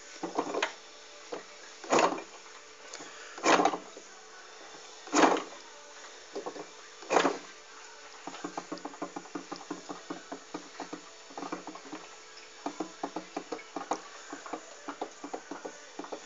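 Odd mechanical noise from a Simson Spatz moped, with no engine running: five loud strokes about every one and a half seconds, then from about halfway a quick run of light clicks, several a second.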